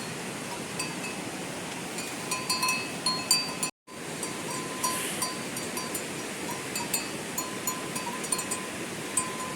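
Steady rain with small bells clinking irregularly, their short, ringing notes at a few fixed pitches over the hiss of the rain. The sound cuts out completely for a moment just before halfway.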